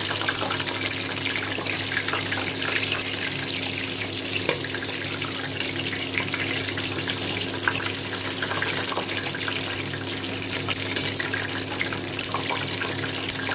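Chicken sizzling in hot oil in a pot: a steady hiss full of small crackles as spoonfuls of oil are poured over it. A steady low hum runs underneath.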